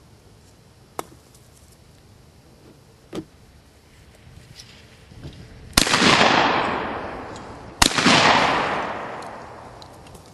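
Two shotgun shots fired at clay targets about two seconds apart, each loud crack trailing off in a long rolling echo. Two much quieter sharp clicks come earlier.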